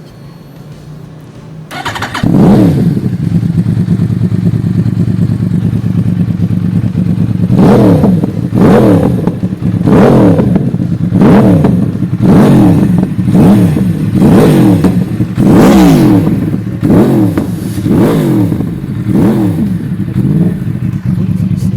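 A 2012 Yamaha R1's 998 cc crossplane-crank inline-four, breathing through a Two Brothers titanium full exhaust system. It idles, jumps loud about two seconds in, then is blipped about ten times in quick succession, about once a second, each rev rising and falling back to idle.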